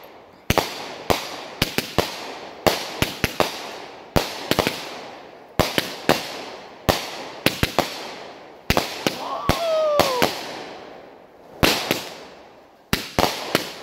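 Consumer aerial fireworks cake (multi-shot repeater) firing a long, irregular string of sharp bangs, often two or three in quick succession. The shots fade off between volleys as the shells launch and burst overhead.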